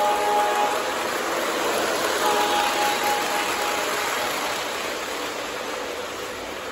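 Lionel O-gauge model trains running on three-rail tubular track: a steady rolling noise, with a faint held tone twice, at the start and again about two seconds in.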